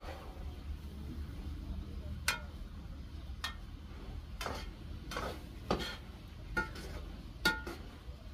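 Metal ladle stirring food in a metal cooking pot, clinking and scraping against the pot's sides and rim about seven times at irregular intervals, over a low steady rumble.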